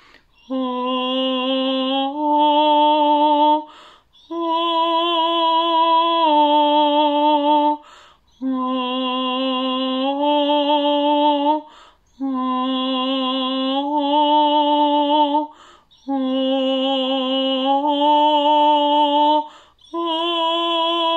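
A woman's voice singing long wordless vowel tones, each breath-long phrase of about three and a half seconds stepping between two or three held notes with a slight vibrato. Short breaths come about every four seconds.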